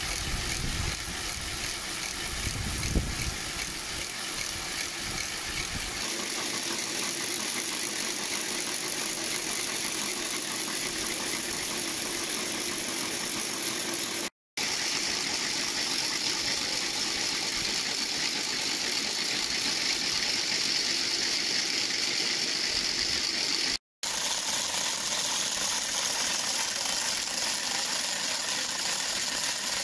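A group of hand-cranked wooden Easter ratchets (Ratschen) turned together: a dense, continuous rapid clattering of wooden tongues snapping over cogwheels, broken twice by brief silences. This is the Holy Week ratcheting that stands in for the church bells, which fall silent over Easter.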